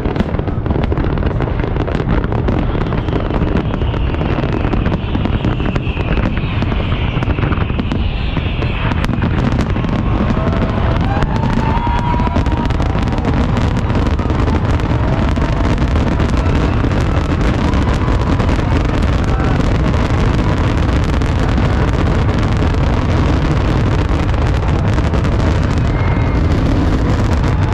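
Large aerial fireworks display in a dense, continuous barrage: many bursts overlapping into a steady booming and crackling, with a falling whistle from about three to nine seconds in.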